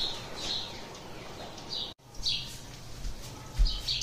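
A bird chirping repeatedly in the background: short high chirps every second or so. The sound drops out briefly about halfway through.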